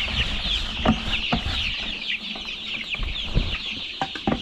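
A flock of month-old chicks peeping without pause, many short falling chirps overlapping. A few sharp knocks come through about a second in and again near the end.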